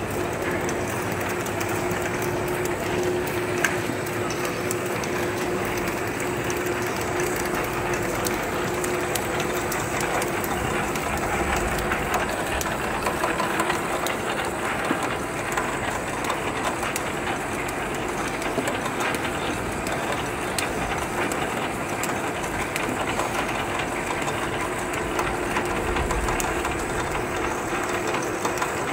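Bouillon-cube paper-wrapping machine running: a steady, rapid mechanical clatter made of many fine clicks.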